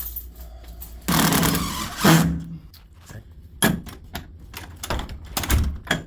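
Installing a door security latch: a short burst from a power drill, then a series of sharp clicks and knocks as the metal latch parts are fitted to the door.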